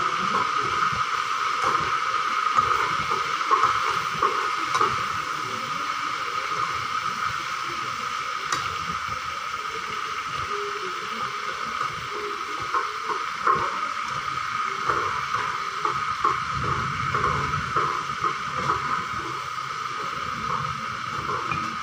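Chicken feet sizzling in a wok over a portable gas burner, with a steady hiss throughout, while a metal ladle scrapes and knocks against the pan in irregular strokes as they are stirred.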